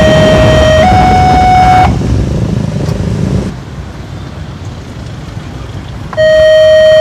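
Railroad level-crossing warning siren sounding a loud two-tone wail, stepping between a lower and a higher pitch about once a second. It cuts off about two seconds in and starts again near the end. Under it, a vehicle's rumble fades to a quieter hum.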